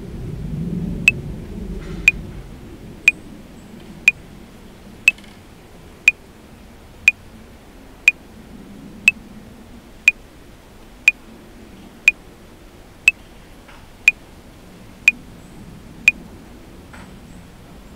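Metronome clicking at 60 beats per minute: sixteen even, sharp ticks one second apart, four bars of 4/4. Under them runs a low rumble that is loudest in the first two seconds, then a steady background hiss.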